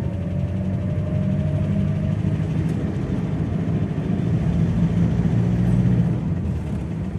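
Mitsubishi Storm pickup driving at low speed, a steady engine and road rumble. No knock comes from under the car, now that the broken propeller-shaft centre bearing mounting has been replaced.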